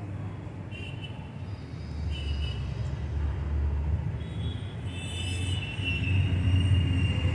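Steady low outdoor rumble that grows louder from about two seconds in and again near the end, with a few faint short high chirps over it.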